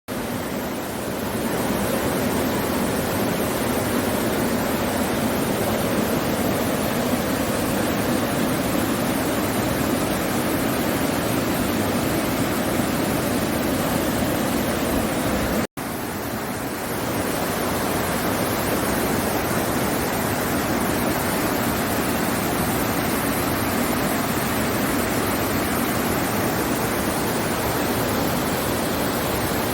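Mountain valley stream rushing in a steady, even flow of water noise. The sound cuts out for an instant about halfway through, then resumes.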